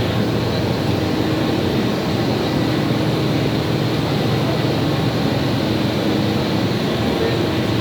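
Absorbent cotton processing machine running with a steady, loud mechanical drone and hum.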